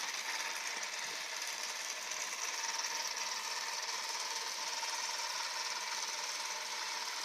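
Robot vacuum cleaner running: a steady whirring hiss with a faint steady tone underneath.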